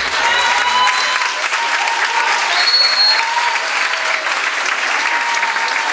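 An audience applauding and cheering, with scattered whoops rising above the clapping, the highest about halfway through. The music's last low bass note dies away in the first second.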